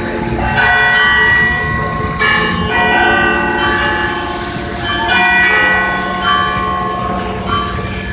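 San Fernando Cathedral's church bells pealing: several bells struck one after another, roughly every second, each ringing on and overlapping the next, over a low steady rumble.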